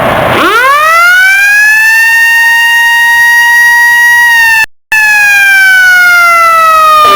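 Fire station alarm siren winding up to a high steady wail, holding, then slowly falling in pitch. The sound cuts out for a split second a little past halfway.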